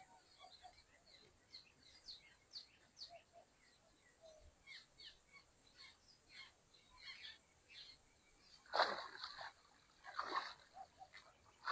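Birds chirping with many short calls over a steady high hiss, and two louder noisy sounds about nine and ten seconds in.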